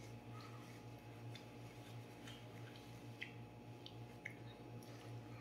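Quiet room tone with a steady low hum and a few faint, soft ticks about once a second.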